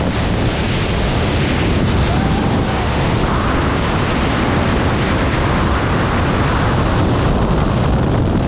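Freefall wind rushing over the camera microphone during a tandem skydive: a loud, steady roar of wind noise.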